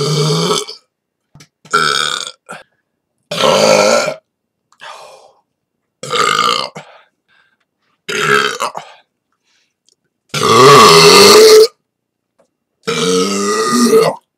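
A person belching: a run of about seven loud burps, one to two seconds apart, with a faint short one among them. The longest and loudest burp, lasting over a second, comes about two-thirds of the way through.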